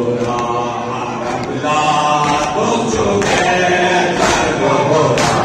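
Unaccompanied chanting of an Urdu devotional poem on long held notes, sounding like several voices together.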